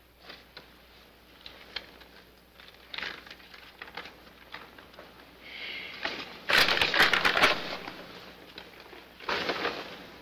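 Paper rustling and crinkling as a folded picture is held up and handed over, with faint scattered crackles at first and the loudest burst of rustling for about a second past the middle, then a shorter burst near the end.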